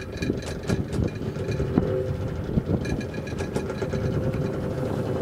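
A boat's motor running steadily underway, with irregular sharp clicks and knocks over the hum.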